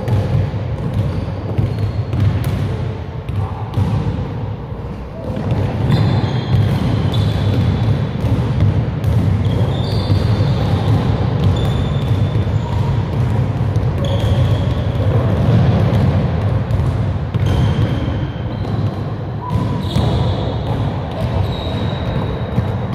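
A basketball dribbled and bouncing on a hardwood gym floor, the thuds coming at irregular intervals, with short high sneaker squeaks between them. The sounds echo in the large gym over a steady low hum.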